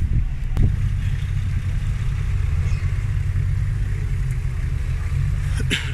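An off-road 4x4's engine running steadily at low revs, a deep drone, with a single sharp click about half a second in.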